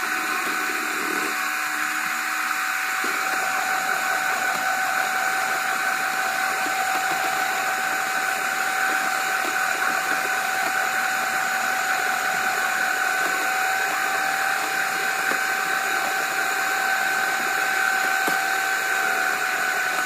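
Electric hand mixer running at a constant speed, its beaters whisking a liquid batter in a plastic jug: a steady motor whine over a whirring hiss.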